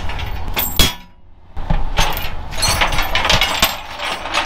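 Metal hardware clinking and rattling against a steel diamond-plate flatbed deck as tie-down gear is handled: a loud knock a little under a second in, then a quick run of jangling clinks.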